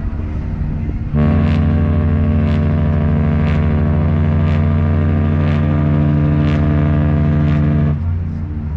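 Mariner of the Seas cruise ship's horn sounding one long, deep, steady blast of about seven seconds, starting about a second in and stopping abruptly; a low rumble continues under it and after.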